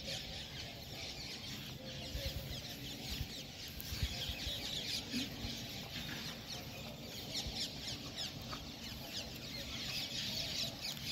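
A flock of birds chattering and chirping in quick, high calls that overlap without a break.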